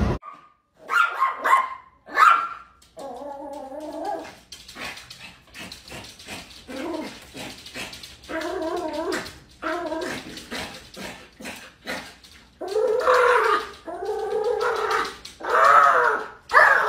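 Small dog whining and yipping at a glass door in a long run of high, wavering cries. There are two sharp yips about a second and two seconds in, and the loudest cries come near the end.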